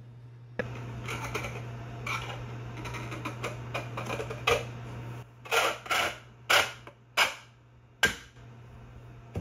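3D-printed plastic parts scraping and creaking as a printed cylinder is twisted and pressed down into its printed base. At first a continuous rubbing with many small clicks, then about five separate sharp scrapes as it seats.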